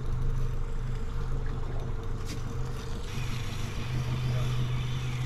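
Boat's outboard motor idling with a steady low hum.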